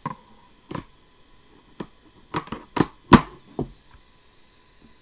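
A series of about eight sharp clicks and knocks, irregularly spaced, the loudest a little past three seconds in, with quiet between them.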